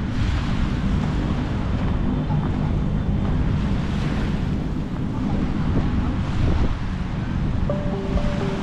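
Wind buffeting the microphone in a steady low rumble, over the soft wash of small waves at the shoreline. A faint held tone with two pitches comes in near the end.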